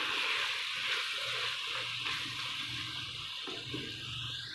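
Bitter gourd (karela) curry sizzling in a kadai over the heat, with a steady hiss, while a wooden spatula stirs it.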